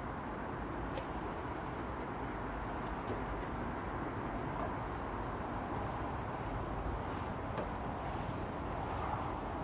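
Steady background rumble and hiss with a few faint small clicks.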